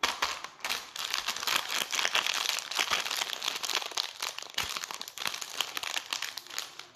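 Plastic wrapper of a packaged layer cake crinkling as hands squeeze and handle it: a dense, loud crackle of many small clicks that starts abruptly and thins out near the end.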